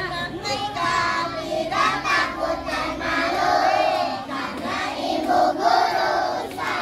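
A group of young children singing together, their voices overlapping.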